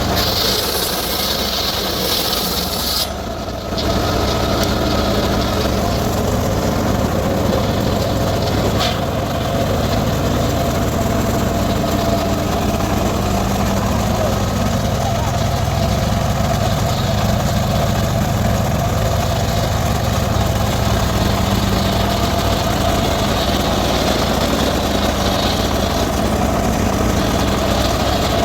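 Circular saw cutting teak wood: a harsh, rasping cut for the first three seconds that stops abruptly, then the saw runs on with a steady hum and a faint whining tone.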